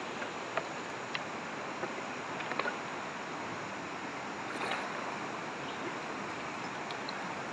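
Steady rush of a fast, shallow river current running over rocks, with a few light knocks.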